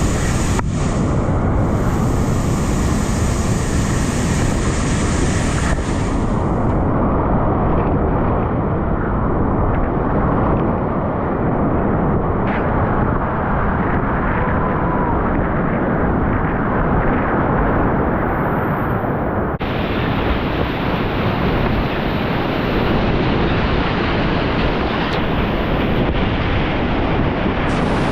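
Whitewater rapids rushing loudly and steadily around a kayak, with a heavy low rumble. The hiss turns duller about six seconds in and brightens again near twenty seconds.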